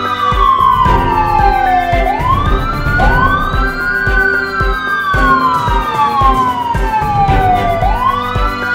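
A siren wailing in a repeating cycle: the pitch rises quickly, holds, then slides slowly down, about every six seconds. It plays over background music with a steady beat.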